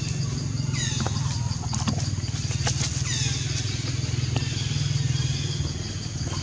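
Baby macaque giving two short, shrill squeals that fall in pitch, about a second in and about three seconds in. Under them runs a steady low motor-like hum.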